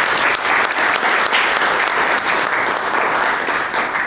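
Audience applauding, a dense clapping that begins to die away at the very end.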